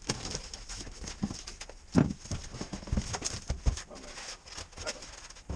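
Cardboard shipping box being opened: a knife slitting the packing tape along the seam, then the flaps pulled open, with rustling and irregular cardboard knocks. The loudest knock comes about two seconds in.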